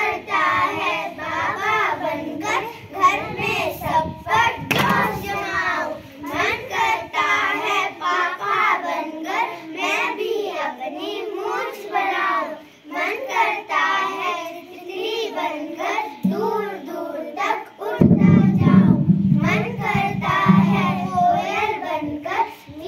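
A group of young children singing a song together into microphones, with a low rumble on the microphone for a couple of seconds near the end.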